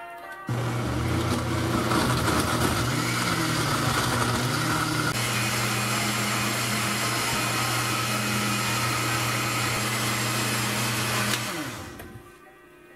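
Black+Decker countertop blender with a glass jar starting about half a second in and running steadily, puréeing a thick smoothie. Its pitch wavers for the first few seconds as the mixture churns, then holds. It winds down and stops about a second before the end.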